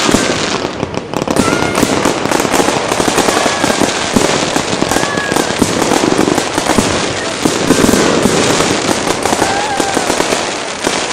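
Fireworks display: a dense, continuous barrage of crackling and popping bursts, with a few short faint whistling tones over it.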